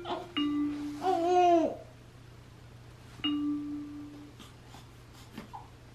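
An electronic baby play-gym toy plays the same bright chiming note twice, each held about a second, and an infant gives a short bending vocal sound about a second in. A few faint clicks come near the end.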